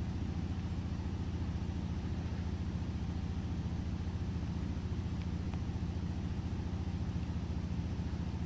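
Shop air compressor running steadily, heard from the neighbouring property: a fast, even low pounding that sounds much like a muffled jackhammer.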